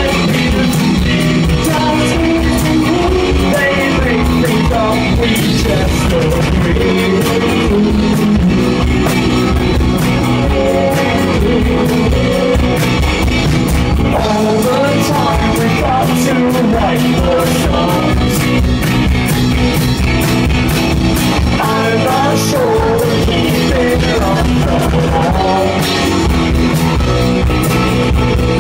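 Live indie band playing: vocals over electric guitar, drums and a shaken tambourine.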